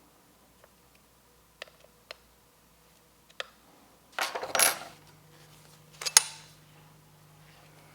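Hard parts being handled: light scattered clicks, a louder scraping clatter about four seconds in, and a sharp click about six seconds in, over a faint steady hum.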